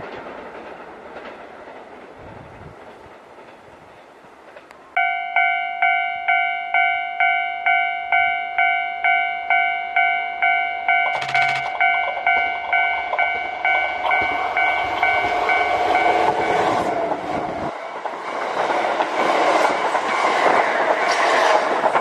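Japanese level-crossing alarm starting about five seconds in, its electronic bell ringing about twice a second. From about 14 s a Kintetsu electric train approaches and passes, its rumble and wheel clatter growing loud toward the end. Before the alarm, the noise of an earlier train dies away.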